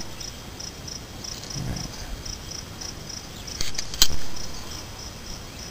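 Insects chirping in short, evenly repeated high pulses, with two sharp metal clicks about four seconds in, the second the louder, from a brake-line flaring tool's clamp bar being handled.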